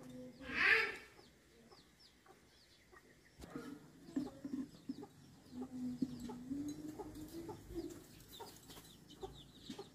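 Chickens clucking, with a louder rising squawk about half a second in, over repeated faint chirps of small birds. Light clicks of metal pliers on the chainsaw's parts come through now and then.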